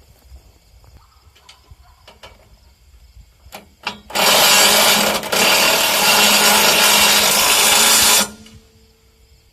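Power drill running in one burst of about four seconds, starting about four seconds in, with a short dip partway through. A few light clicks and knocks come before it.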